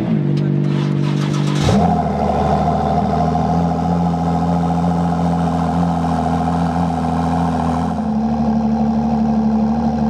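Car engine running steadily at idle. About two seconds in its note changes suddenly with a short burst, then it settles to a lower, even idle.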